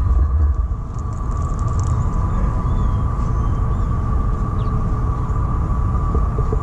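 Low, steady rumble of wind and movement on an action camera's microphone, over a steady high whine from the greyhound track's mechanical lure running along its rail.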